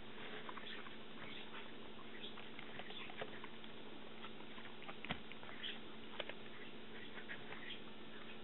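Light, scattered clicks and crackles of a thin clear plastic food tray being handled, with wooden chopsticks tapping and scraping against it; a sharper click about five seconds in and another about a second later. A faint steady hum runs underneath.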